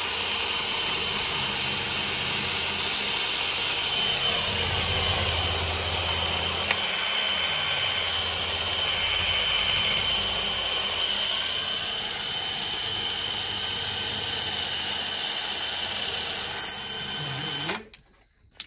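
Cordless drill running steadily under load as it drills into a small metal part, then stopping abruptly near the end.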